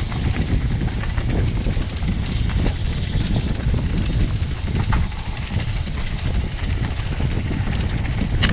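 Mountain bike rattling over a rough dirt trail, with a steady low rumble of tyres and wind on the microphone and scattered sharp knocks and clicks from the bike's frame and parts.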